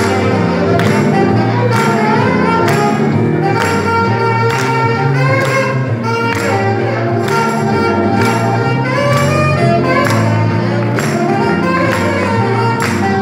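Saxophone playing a slow, gliding melody over fuller backing music with a bass line and a steady percussion beat.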